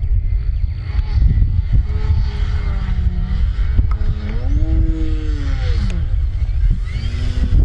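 Electric brushless motor and plastic 13x4 propeller of an E-flite Ultimate 3D RC biplane, its drone rising and falling in pitch several times as the throttle is worked through aerobatic moves. Wind rumbles on the microphone throughout.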